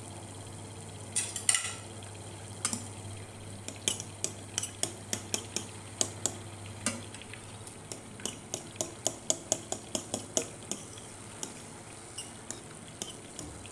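Metal fork clinking against the side of a stainless steel pot while stirring the liquid in it: irregular sharp taps that quicken to about four a second near the middle of the stretch.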